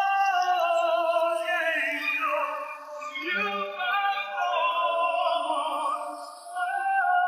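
Background music: a high, wordless singing voice holds long notes over sustained accompaniment.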